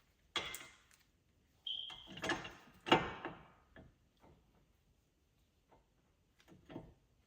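Metal clanks, knocks and ratchet clicks from hand tools working a bolt-on hub removal tool on a car's front wheel hub. There is a brief metallic ring about two seconds in and the loudest knock about three seconds in, followed by sparse faint ticks.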